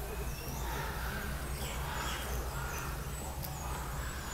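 Birds chirping: short high-pitched chirps that dip and turn back up, repeating every second or so over a steady low hum and a faint murmur of voices.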